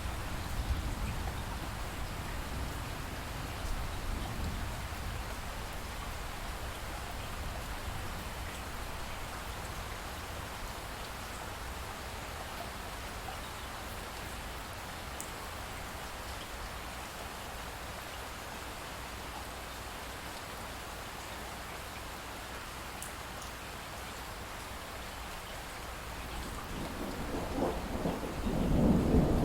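Steady rainfall with a low rumble of thunder at the start. Thunder builds to a loud roll near the end.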